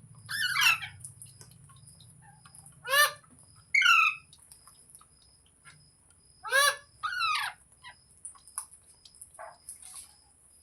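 Green parrot giving short, harsh screeching calls, in pairs about every three and a half seconds, with faint clicks between them.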